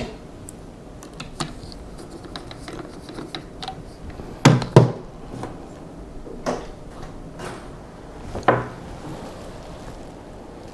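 Rifle parts, screws and hand tools being handled on a workbench: scattered light clicks and taps, with two louder knocks in quick succession about four and a half seconds in and another knock near eight and a half seconds.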